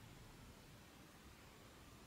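Near silence: faint, steady hiss of room tone.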